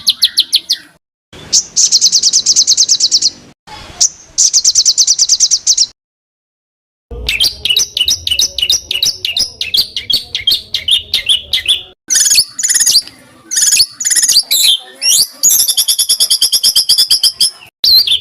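Recorded songbird song in fast, high trills and runs of sharp repeated notes, loud and in bursts, with a complete break about six seconds in where one recording is cut to the next.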